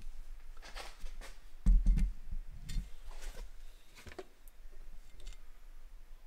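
Light clicks and rustles from handling, with two dull low thumps about two seconds in.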